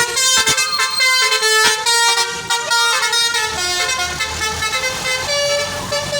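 Basuri 'telolet' multi-tone musical horn on a vehicle playing a tune of stepped notes. The notes change quickly in the first half and are held longer in the second half.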